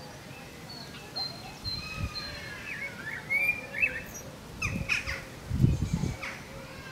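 Songbirds chirping and whistling in short rising and falling calls, with a few dull low thumps about five to six seconds in.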